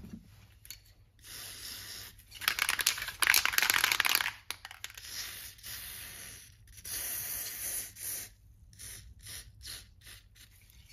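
Würth aerosol spray can hissing as it sprays lubricant into a ratchet head. There is one loud burst of about two seconds near the start, then several shorter, weaker sprays with brief gaps.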